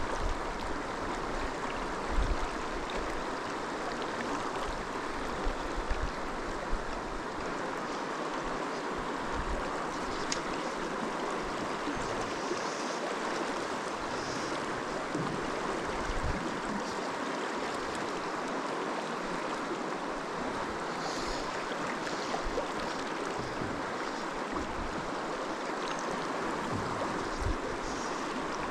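Steady rush of flowing river water, with a few low bumps, the loudest about two seconds in.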